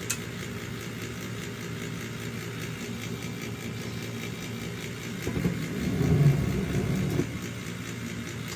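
Gas furnace running with a steady low hum, its blower fan not yet on. There is a sharp click at the very start, and a louder rough rumble for about two seconds from five seconds in.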